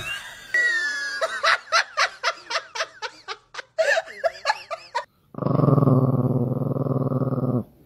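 A run of short, high, wavering animal cries, about three a second, then a small dog growling in one steady, low, buzzing growl of about two seconds that stops suddenly.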